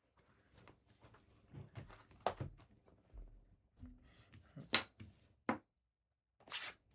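Quiet handling of sealed trading-card boxes and their packaging: a few faint taps and clicks with soft rustling, as the boxes are set out and opened.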